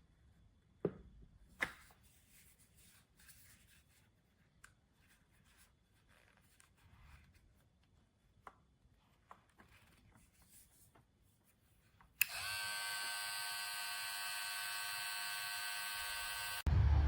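A few light clicks and handling noises, then about twelve seconds in a cordless hair clipper switches on and runs with a steady high buzz for about four and a half seconds before cutting off.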